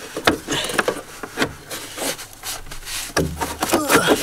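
A cabin air filter being slid sideways by hand inside its plastic housing behind the glovebox: scraping and rubbing with many quick clicks and knocks as the frame catches on the housing.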